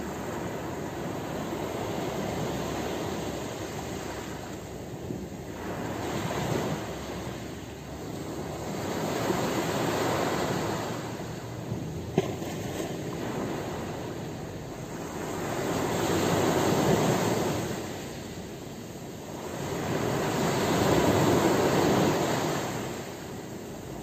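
Small sea waves breaking and washing up a pebble beach, the surf swelling and fading every four to five seconds, loudest in the last few swells. One brief click about halfway.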